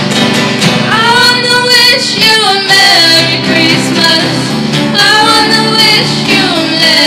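Teenage girls singing a Christmas pop song into microphones, backed by a live student band of acoustic and electric guitars, keyboard and drum kit.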